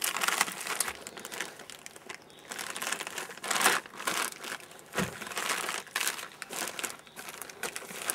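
Green plastic ration-pack pouch crinkling as it is handled and unpacked, in irregular rustles with a few sharper crackles.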